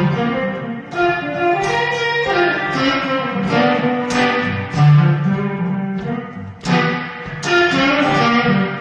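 Electric guitar played clean, picking a melodic line of single notes and chords, each struck note ringing on.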